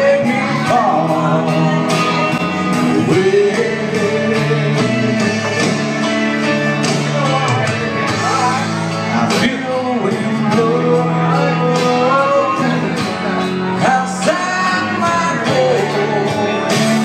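A man singing a country song live into a microphone, his voice carried over steady instrumental backing.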